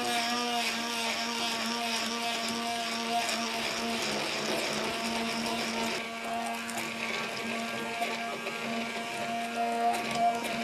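Electric stick blender running steadily in a glass bowl, blending eggs, sugar and grated carrot into cake batter: a steady motor hum, a little softer from about six seconds in.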